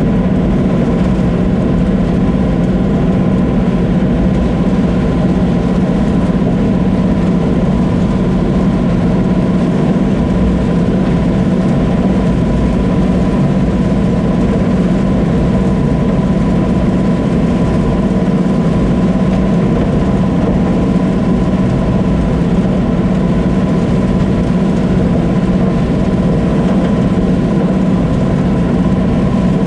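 Combine harvester running steadily: a constant engine drone with a thin, steady whine above it.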